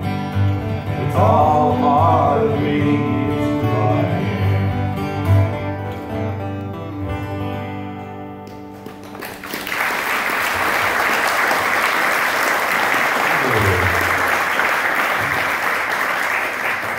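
Acoustic guitars play the song's closing chords, with a voice holding a last sung note, and the final chord rings out and fades. About nine seconds in, an audience breaks into steady applause.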